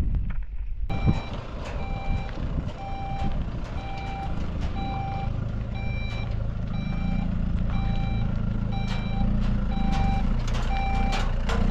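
Pickup truck reversing slowly, its reversing alarm beeping steadily about once every two-thirds of a second over the low hum of the engine; the beeping starts about a second in. A few sharp knocks come near the end.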